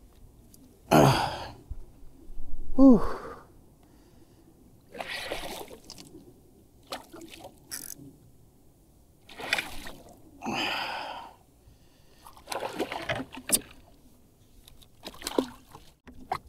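A person gasping and breathing hard in short, heavy breaths every second or two, with two falling voiced grunts in the first three seconds, from the strain of fighting a hooked milkfish on a rod from a kayak.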